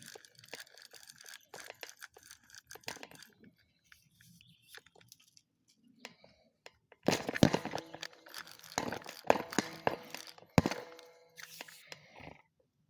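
Close rustling and crackling handling noise: scattered clicks at first, a quieter gap, then a louder, dense run of crackling in the second half.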